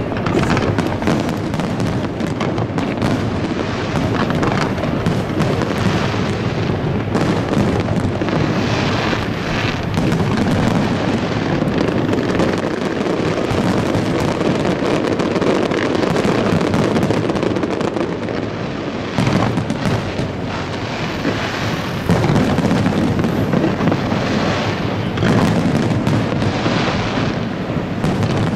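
Aerial firework shells bursting in dense, overlapping succession: a near-continuous barrage of booms with sharp reports throughout.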